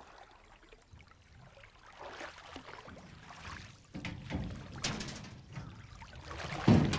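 Water dripping and pouring off a drift net as it is hauled by hand out of a river into a wooden boat. It is quiet at first and grows louder from about two seconds in, with a few sharper hits in the second half.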